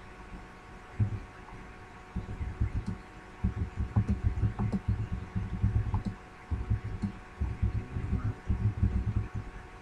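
Typing on a computer keyboard. The keystrokes come through as dull low thumps in quick runs with short gaps, starting about a second in, over a faint steady electrical hum.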